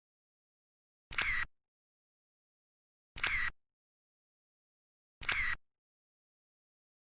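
A short, identical click sound effect, like a camera shutter, repeated three times about two seconds apart with dead silence between.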